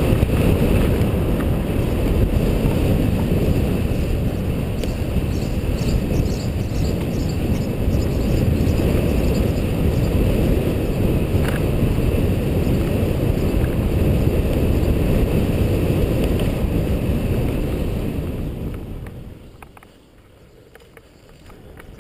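Wind buffeting the microphone of a vehicle-mounted GoPro HD Hero on the move. It runs as a steady, heavy rumble, then fades away near the end as the vehicle slows for a junction.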